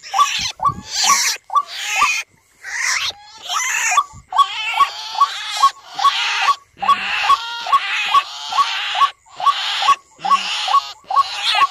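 A recorded bird call played from a trapper's lure player, looping a short chirp about three times a second, overlaid with longer harsh, raspy calls.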